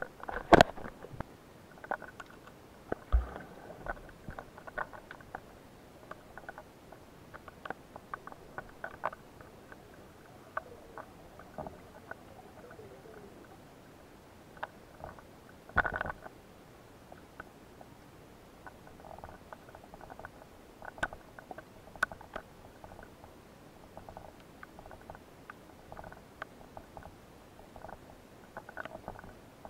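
Underwater ambience picked up by a diver's camera: scattered faint clicks and crackles over a low hiss, with a few louder knocks, the loudest just after the start and about sixteen seconds in.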